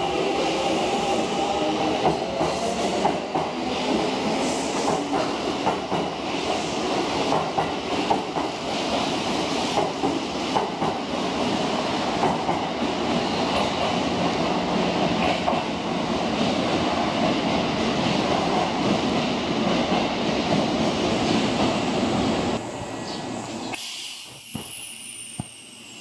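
Kintetsu electric trains running through an underground station: a loud, steady rumble with wheels clacking over the rail joints. About 22 seconds in it drops away, and near the end a thin high whine falls steadily in pitch.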